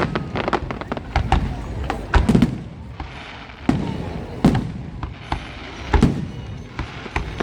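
Fireworks going off: an irregular run of sharp cracks, with several heavier low booms standing out among them.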